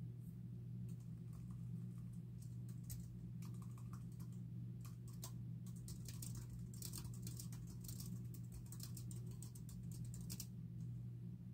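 Typing on a computer keyboard: scattered keystrokes at first, then a fast, continuous run of typing from about halfway in that stops shortly before the end, over a steady low hum.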